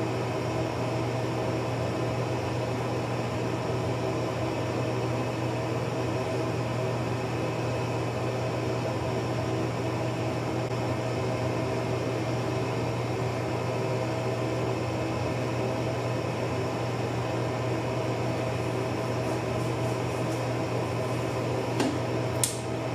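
Steady mechanical room hum: a low drone with several steady tones above it, like a fan or air conditioner running. Near the end, two short clicks of a laptop trackpad being pressed.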